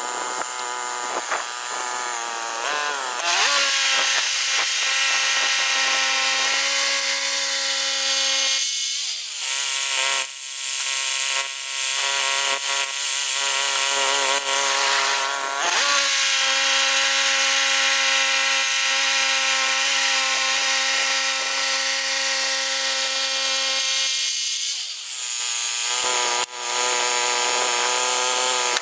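Woodland Mills HM122 portable bandsaw mill running at high speed, its band blade cutting through a large pine log. The engine's pitch sags and recovers twice, about 9 and 25 seconds in.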